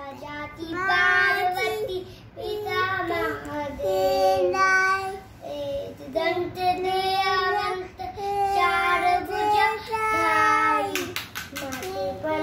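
A young boy singing unaccompanied, in long held notes with short pauses between phrases. Near the end comes a quick run of sharp clicks.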